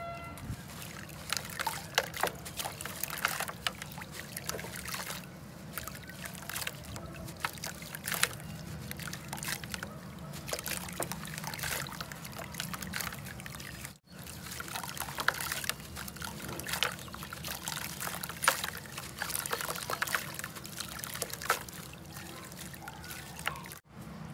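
Hands swishing and squeezing gritty red dirt in a tub of muddy water: water trickling and sloshing, with many small sharp splashes. It drops out briefly twice, once about halfway through and once near the end.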